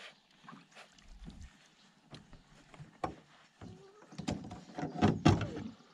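Irregular knocks and thumps against a canoe hull, sparse at first and then louder and closer together toward the end.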